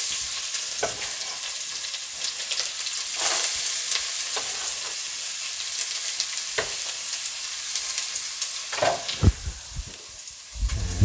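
Chopped onions sizzling in hot oil in a stainless steel pot, just tipped in. A few sharp knocks of utensils against the pot, the loudest about nine seconds in.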